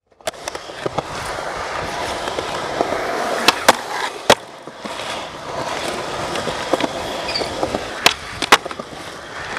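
Skateboard wheels rolling on concrete, broken by sharp clacks of the board popping and landing: two close together and one more a little after three and a half seconds in, and two near the end. Around four seconds in the board works a painted ledge.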